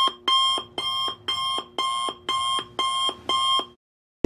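Electronic alarm-clock beeping: short pitched beeps about two a second, eight in a row, stopping shortly before the end.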